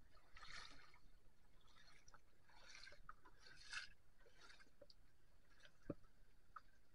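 Faint sloshes and swishes of water as rubber hip-wader boots step through a shallow stream, with a single light knock near the end.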